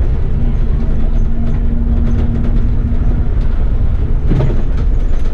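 Bus in motion heard from the driver's cab: a steady low rumble of engine and road noise, with a steady hum from about half a second to about three seconds in.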